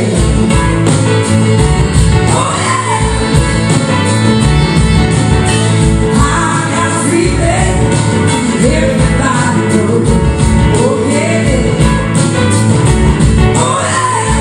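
Live rock band playing loudly: drum kit, electric guitars and a horn section of saxophone, trumpet and trombone, with a lead line that slides up and down in pitch over the band.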